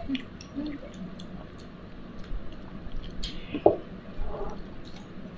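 A person gulping down a glass of juice: repeated swallows with small wet clicks, and one louder gulp or knock a little past halfway.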